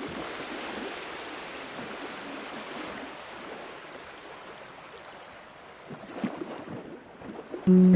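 Sea water washing, heard as a steady rushing hiss with a few sharper splashes near the end. Music comes in just at the close.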